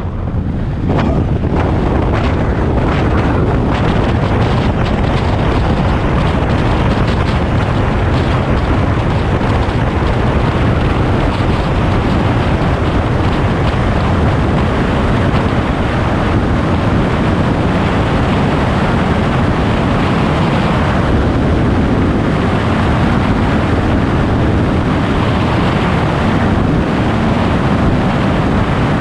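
Steady wind rush buffeting the microphone beside a Schweizer 1-23 glider's canopy during an aerotow takeoff. For about the first ten seconds it is mixed with knocks and rumble from the glider's wheel rolling over the runway.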